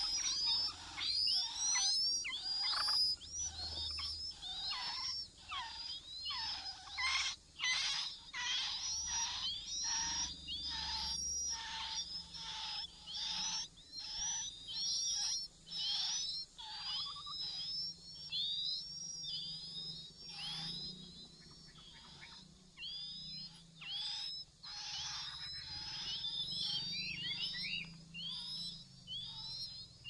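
Chinese hwamei nestlings begging at the nest. They make a continuous run of short, high chirps, each sliding down in pitch, several a second, that ease off briefly about two-thirds of the way through.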